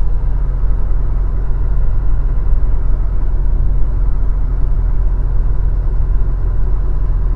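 Delivery truck engine running steadily with a low, even rumble.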